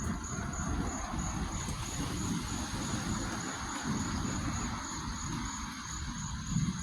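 Outdoor night ambience: insects keep up a steady high, faintly pulsing trill. Under it, a broad rushing noise swells over several seconds and eases near the end, over a low uneven rumble.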